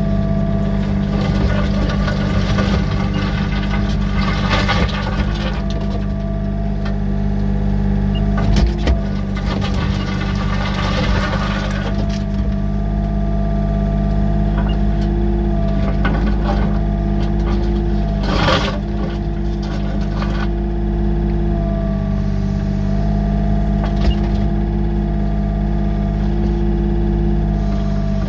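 Yanmar B37 compact excavator's diesel engine running steadily, heard from inside the cab, with a hydraulic tone that comes and goes as the boom and bucket move. The bucket scrapes over gravel in spells, and there is one sharp knock about eighteen seconds in.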